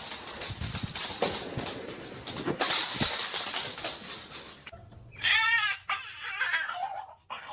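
Clicking and rustling handling noises, then about five seconds in a dog's brief high, wavering cry, typical of a dog frightened by a nail trim.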